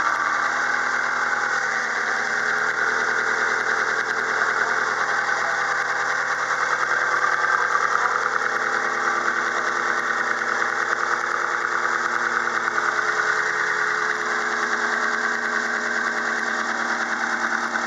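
Ford Focus 1.6-litre 16-valve Zetec four-cylinder petrol engine idling steadily.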